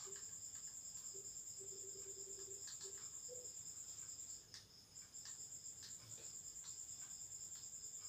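Faint crickets chirping in a steady, high-pitched, rapidly pulsing trill, with a few soft clicks scattered through it.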